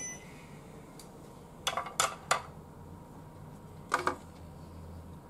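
Kitchen utensils clacking against a metal cooking pot: three quick knocks about two seconds in, then another near four seconds, as the pot of boiled noodles is handled.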